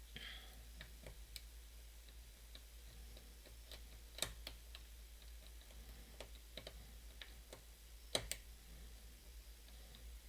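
Faint, scattered small metallic clicks and ticks of lock picks working the pins of a challenge lock, with two sharper clicks about four seconds and about eight seconds in.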